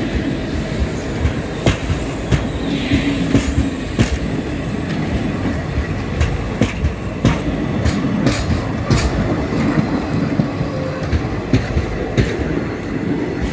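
Indian Railways passenger coaches rolling past close by: a steady rumble of wheels on track with frequent sharp clacks as the wheels cross rail joints.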